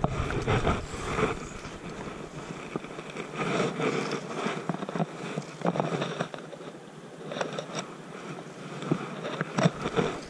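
Irregular scraping and rustling as fly line is stripped in and handled by hand and jacket sleeves move close to the microphone, with scattered small clicks.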